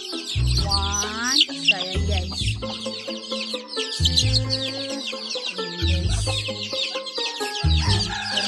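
Chickens clucking, with many quick high calls overlapping throughout, over background music with a regular bass beat.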